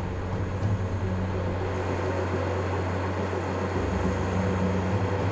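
Heavy mining machinery running steadily: a continuous low engine drone with an even mechanical noise over it.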